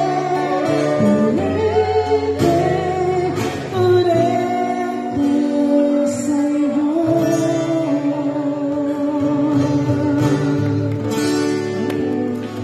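A singer performing a song live with acoustic guitar accompaniment, holding long notes with vibrato over strummed and picked chords.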